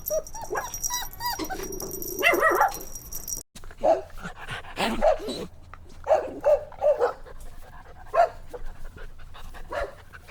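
Puppies barking and yipping in short, repeated calls, with a brief break about a third of the way in.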